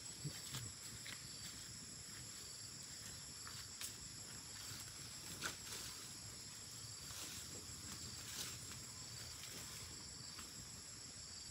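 Steady high-pitched chorus of insects chirring, with a few scattered faint clicks.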